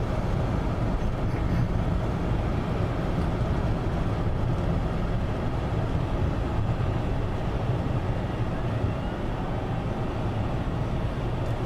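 Steady low rumble of a Ford F-250 pickup's engine and running gear, heard from inside the cab.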